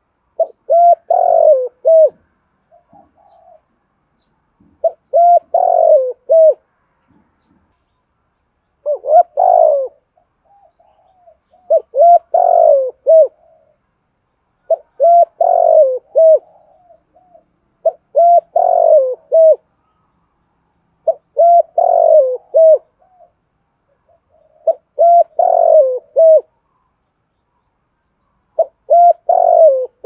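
Spotted dove cooing: a repeated multi-note coo phrase about every three seconds, nine times, most phrases led by a soft short note.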